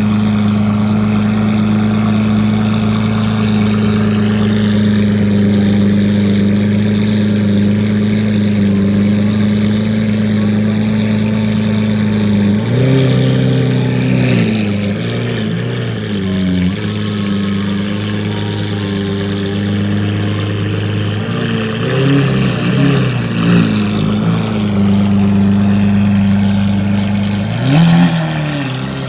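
Lamborghini sports car engine idling with a steady, loud rumble. It is revved in short throttle blips, once a little before halfway, a few times around three-quarters through, and once more near the end, each one rising and falling back to idle.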